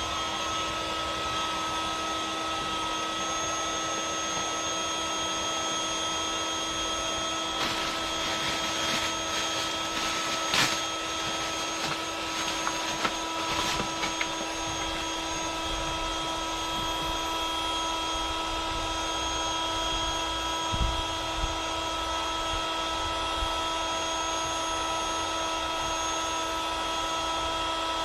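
Electric air pump running steadily with a constant hum, inflating a chamber of an inflatable boat. A few short knocks and clatters come about a third of the way in.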